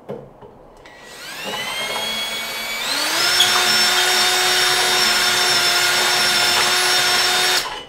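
Cordless drill boring a hole through a boat's center console. The motor's whine rises over about two seconds, steps up to full speed about three seconds in, runs steady, then cuts off sharply near the end.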